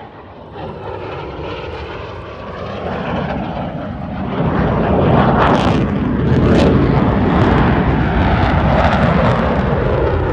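Lockheed Martin F-35A Lightning II's single F135 turbofan engine, heard as loud jet noise. It builds from a moderate rumble to a loud, crackling noise about four seconds in as the fighter climbs steeply.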